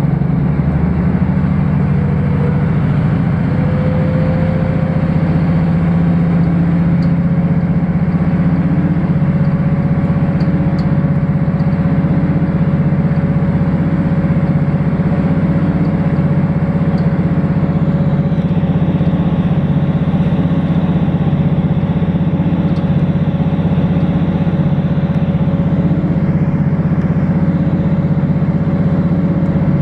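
Diesel train's engine working steadily under load on a long climb, heard from inside the carriage: a steady low drone with a thin higher whine that rises slightly in the first few seconds, then holds.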